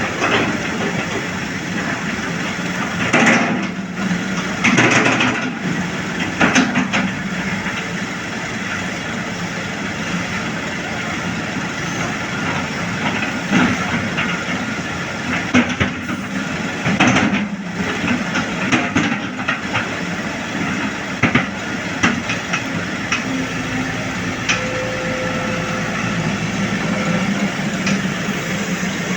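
Heavy diesel machinery running steadily, with loud clanks and thumps at irregular intervals, about six in all.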